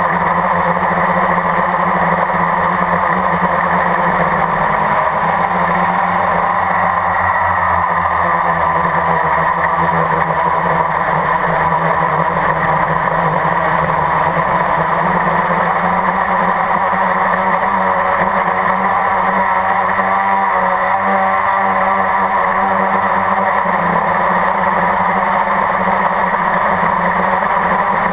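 Blade 350 QX quadcopter's four electric motors and propellers running in flight, heard from a camera mounted on the craft: a loud, steady drone-and-whine whose pitch wavers slightly now and then as the motors change speed.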